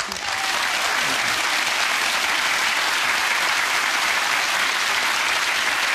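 Studio audience applauding, starting suddenly and holding steady and loud.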